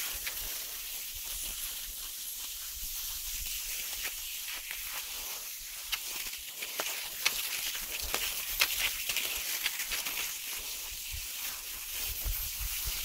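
Cross-country skis sliding over snow: a steady hiss with scattered sharp clicks.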